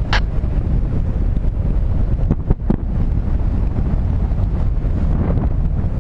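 Airflow of paragliding flight buffeting the camera's microphone: a loud, steady low rumble of wind noise, with a few brief clicks at the start and around the middle.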